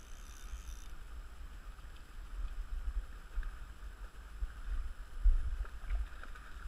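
Wind buffeting the microphone in uneven gusts, loudest about two-thirds of the way in, over the steady rush of a shallow river running over gravel.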